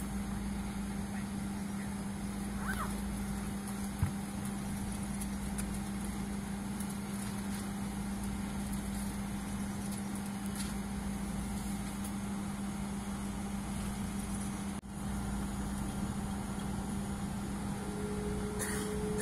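Boeing 777-200ER cabin noise while taxiing: a steady engine hum with a low drone and airflow hiss, not rising as in a take-off roll. A single click about four seconds in, a brief dip in the sound around fifteen seconds, and a faint higher tone joining near the end.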